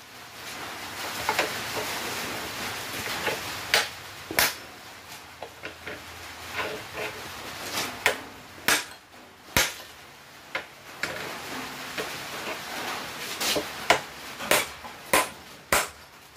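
Hand hammer striking the end of a steel tong-rack bar to bend it inward: a series of sharp blows at uneven intervals, some with a short ring.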